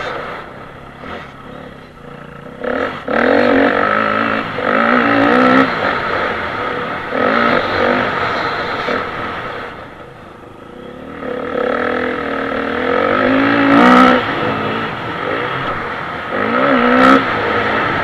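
Dirt bike engine heard from the bike itself, revving up and down as the rider accelerates and backs off the throttle. It drops away briefly about a second in and again about ten seconds in, then picks up once more.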